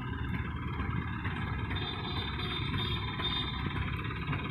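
Mahindra Supro minitruck's engine idling steadily.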